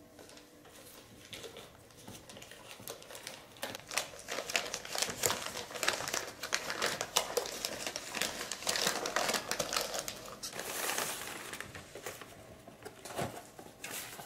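Wrapping paper crinkling and rustling as a ribbon-tied parcel is unwrapped by hand, in quick irregular crackles that grow busier from about four seconds in.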